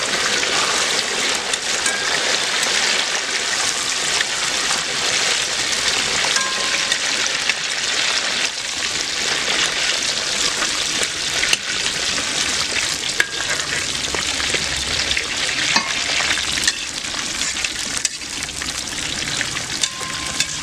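Batter-coated beef pieces, with green chillies and curry leaves, sizzling as they deep-fry in hot oil in a wide aluminium pan. A steel slotted spoon stirs them, with scattered clicks and scrapes against the pan.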